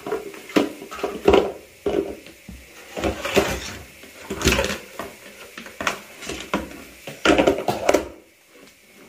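Plastic bowls, a plastic colander and a metal pot clattering and knocking together on a tiled floor as a toddler pulls them apart and restacks them. The knocks come irregularly and stop about eight seconds in.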